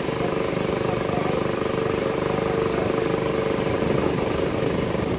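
Small boat's engine running steadily at an even speed, with a constant hum and fast regular pulsing.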